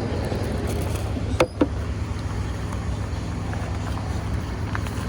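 Steady rumble of interstate highway traffic, with two sharp knocks about a second and a half in.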